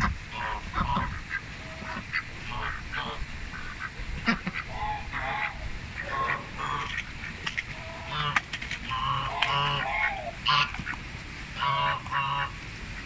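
White Pekin ducks quacking, a steady string of short calls repeated throughout at irregular intervals.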